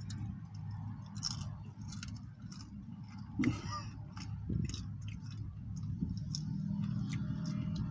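Chewing and mouth sounds while eating a foil-wrapped burrito, with scattered small clicks and crackles over a steady low hum.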